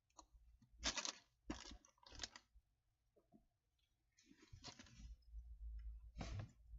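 Soft rustling as a shirt is handled and unfolded: three short rustles in the first couple of seconds, then a longer stretch of rustling about four seconds in.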